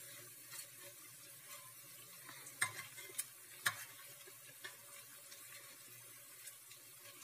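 Vegetable fritters frying in hot oil in a stainless steel pot, a faint steady sizzle, as a metal spoon turns them over. A few sharp clinks of the spoon against the pot come around the middle.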